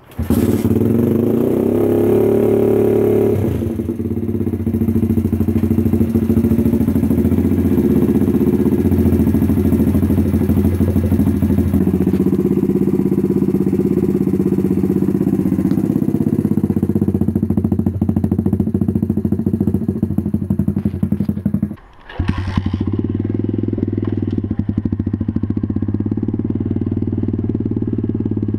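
Welsh pit bike 125cc single-cylinder four-stroke with a straight-through end can exhaust and no silencer, kick-started and catching at once, then running loud and steady. After a brief break a little past two-thirds in, it runs on as the bike is ridden.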